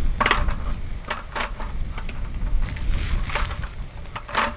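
Aluminium slats of a roll-up camping tabletop clicking and clattering several times as the top is pushed into the table frame's top bar, over a low wind rumble on the microphone.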